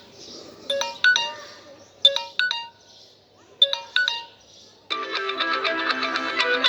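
Samsung Galaxy J4+ call ringtones: a bell-like ringtone of short two-note phrases, each note fading quickly, repeating about every one and a half seconds. About five seconds in it cuts to the next ringtone, a louder, busier strummed-guitar tune.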